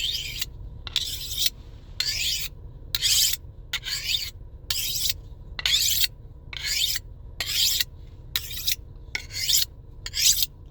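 A fillet knife blade being drawn repeatedly through a knife sharpener: short, high, hissing scrapes of steel on the sharpening surface, about one and a half strokes a second.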